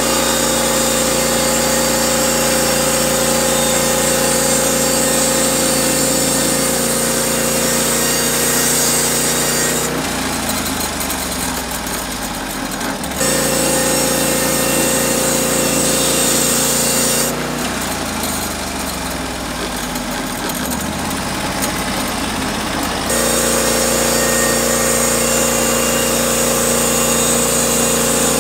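Norwood HD36V2 portable band sawmill running at full speed, its gas engine humming steadily under a bright high hiss. Twice, for a few seconds, the hiss drops away and the engine note sinks lower, as when the engine is throttled down, before full speed returns suddenly.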